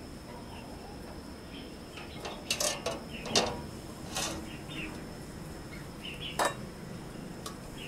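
A whole pumpkin being lowered into a stainless steel steamer pot onto a ceramic bowl, knocking and clattering against the metal and china several times. The sharpest knock comes a little past three seconds in, and another comes near the end.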